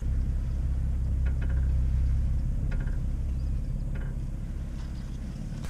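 A low, steady rumble that builds over the first couple of seconds and then slowly fades, with a few faint short ticks above it.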